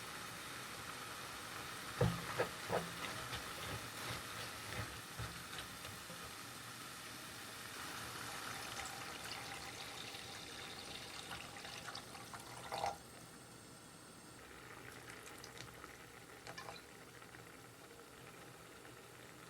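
Food sizzling in a pan, with a few sharp knocks and scrapes of a utensil against the pan about two seconds in and again near the middle. After a loud clatter about thirteen seconds in, the sizzle is quieter.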